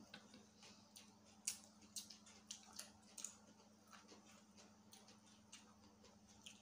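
Faint eating sounds: scattered soft mouth clicks and chewing as food is eaten and pulled apart by hand, over a low steady hum.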